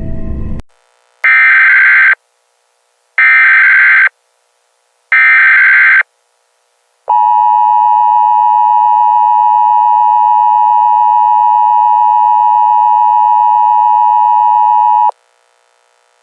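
Emergency Alert System broadcast tones: three bursts of SAME header data, each a raspy digital screech about a second long, then the two-tone EAS attention signal (853 and 960 Hz together) held steady for about eight seconds before it cuts off sharply. A dark music track cuts off just before the first burst.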